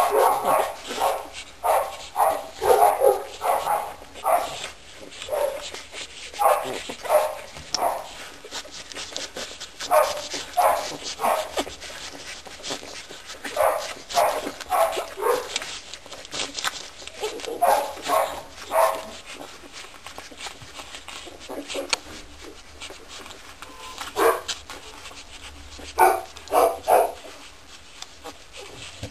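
Two-week-old boxer puppies crying: short, high cries in quick runs of several at a time, with pauses between the runs.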